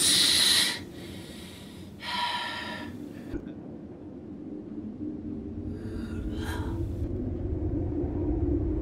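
Eerie breathy gasps and hissing exhalations from the ghostly creature in the mist, a loud one at the start and another about two seconds in, over a steady low drone. A deep rumble swells through the second half.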